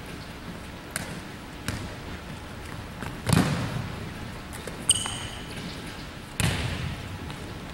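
Volleyball being hit back and forth in forearm passes, each contact a sharp smack that echoes around the empty gym: two louder hits about three seconds apart with lighter taps before them. A brief high squeak about halfway through.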